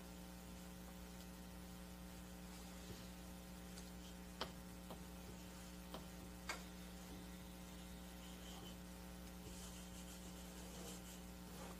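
Steady electrical mains hum, with a handful of faint clicks near the middle.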